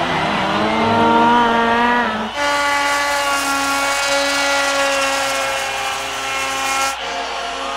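Turbocharged snowmobile engines at full throttle on hill climbs, in short clips joined by abrupt cuts. The first engine note rises as the sled revs up. After a sudden cut, a steady high-pitched engine note with a hiss holds for about four and a half seconds, then cuts off abruptly.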